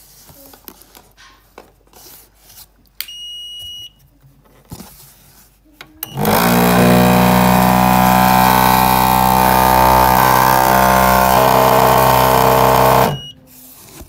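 YG-100 dental amalgamator: a short electronic beep about three seconds in, then about three seconds later its mixing motor starts and runs loudly and steadily through a timed mixing cycle of about seven seconds, stopping abruptly.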